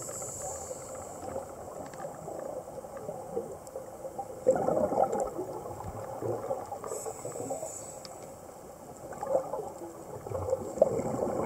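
Scuba diver breathing through a regulator underwater: a short high hiss of inhaling, then a gurgling rush of exhaled bubbles about halfway through and again near the end.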